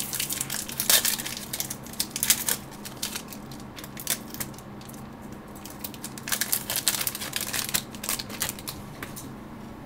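Crinkling and crackling of hockey card packs and cards being handled, in two spells of rapid crackles, one at the start and one a few seconds later. A steady low electrical hum runs underneath.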